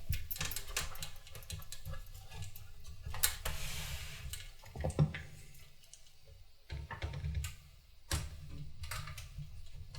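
Screwdriver working at a stubborn screw inside a desktop PC case: irregular small clicks and scrapes of metal on metal, with a few sharper clicks.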